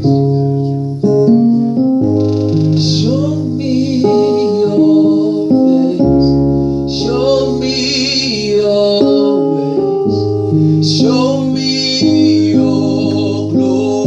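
Worship music: a keyboard playing held chords that change every second or two, with a singing voice carrying the melody over it.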